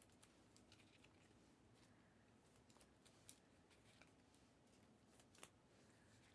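Near silence with faint rustling and a few soft clicks of trading cards being handled, the sharpest clicks about three and five seconds in.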